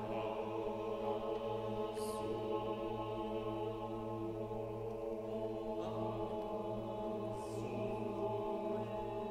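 Mixed chamber choir singing a slow a cappella chant, the voices holding long sustained chords over a steady low bass note, the harmony shifting a couple of times.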